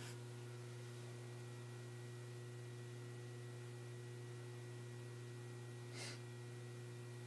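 Faint steady electrical hum with a few thin higher tones, typical of a small egg incubator's fan and heater running. A short soft rush of noise comes about six seconds in.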